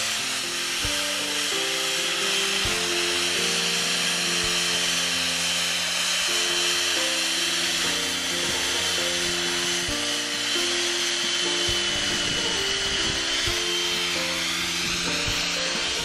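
Chainsaw cutting into a block of ice, a steady hissing buzz with a faint high whine, under a melody of music playing along with it.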